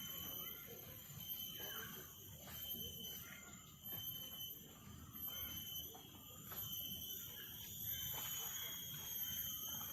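Steady, high-pitched insect drone holding several even tones throughout, over a low background rumble, with faint distant voices.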